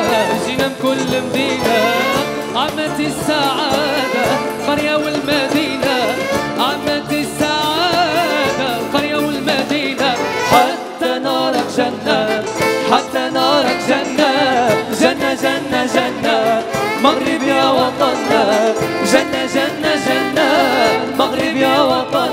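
Two male vocalists singing a Moroccan pop song live into microphones over backing music.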